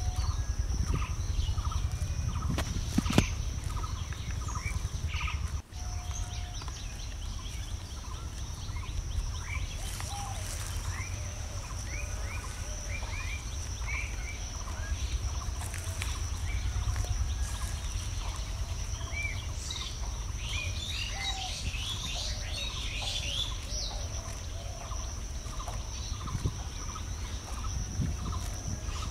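Many birds chirping and calling outdoors, with a quick run of repeated calls in the first few seconds, over a steady high-pitched drone and a low rumble. The sound drops out for an instant a little before six seconds in.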